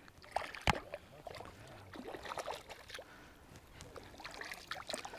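Light splashing and trickling of shallow lake water at the shore's edge, with scattered small clicks and taps and one sharp click about three-quarters of a second in.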